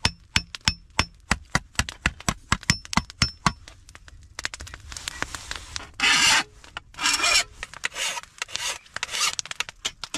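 Hammer strikes on the edge of a thin 22 gauge steel sheet on a stump anvil, about three a second with a faint ring, turning a lip on the griddle's edge. About halfway through, the hammering gives way to four or five long scraping strokes against the steel edge, knocking off the sharp bits.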